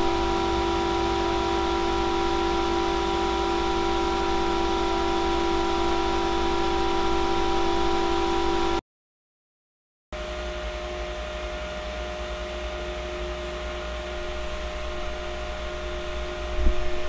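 EKWB Vardar 120 mm PC fan running at about 2,900 rpm, a loud steady rush of air with a strong steady low whine and fainter higher tones. After a short break it changes to a Nidec Gentle Typhoon fan at about 3,050 rpm, a noticeably quieter rush with a different, higher-pitched tone. A brief knock comes near the end.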